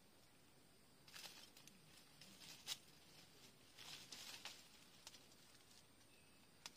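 Faint rustling of orange-tree leaves and branches in short bursts, with a couple of sharp clicks, as oranges are picked from the tree by hand.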